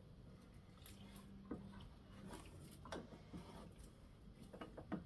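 Near silence with a few faint, scattered clicks and light taps, as of small metal parts being handled during reassembly of the scooter's front wheel and fork.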